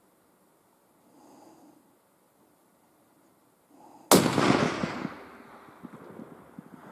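Hunting rifle fired once about four seconds in: a sharp crack followed by a long echo that fades over about two seconds. Before it comes the shooter's slow breathing, close to the microphone, as he settles for the shot.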